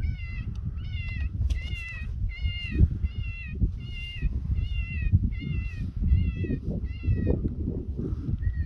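FoxPro X24 electronic predator caller playing a prey distress call: short, high, wavering cries repeated about twice a second. A steady low rumble runs underneath.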